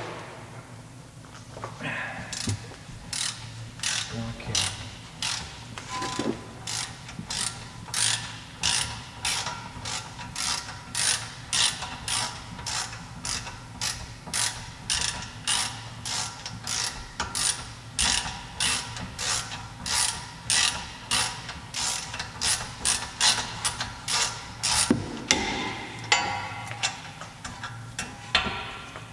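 Socket ratchet wrench clicking as it is swung back and forth to undo a bolt on a rear brake caliper, about two even strokes a second, starting a couple of seconds in and stopping near the end.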